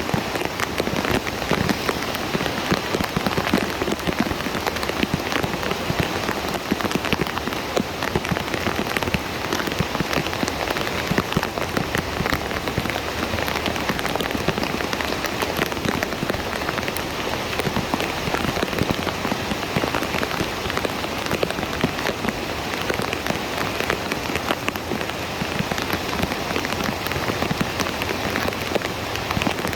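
Heavy rain falling steadily on a flooded street, a dense, even patter of drops.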